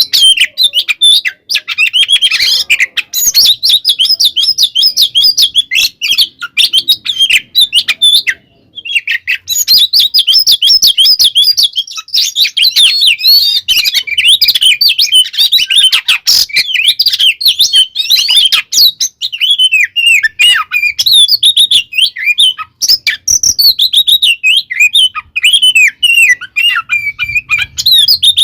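Oriental magpie-robin (kacer) singing a loud, rapid, continuous song of varied chirps and whistles, with one short pause about a third of the way in.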